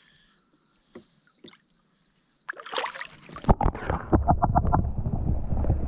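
Water splashing and sloshing against a canoe, starting suddenly about two and a half seconds in and going on as a loud, steady low rumble with crackle. Before that it is faint, with a rapid high ticking about three times a second.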